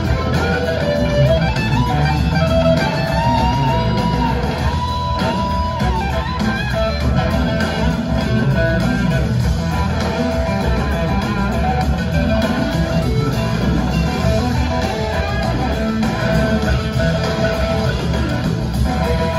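Live blues-rock band playing, with guitar to the fore over bass and drums, heard from the audience in a theatre.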